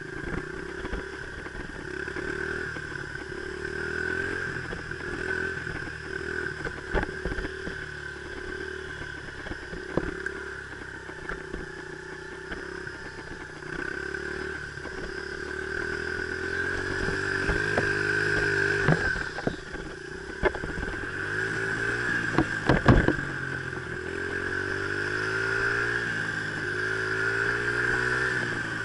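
Dirt bike engine running on a trail ride, its pitch rising and falling as the throttle is worked, with scattered knocks and clatter from the bike over bumps, the loudest cluster about three quarters of the way through.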